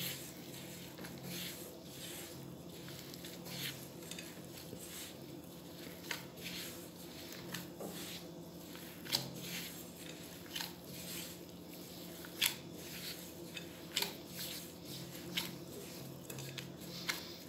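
Gloved hands kneading crumbly biscuit dough in a glass bowl: soft, irregular squishing and crumbling with light taps every second or so, over a low steady hum.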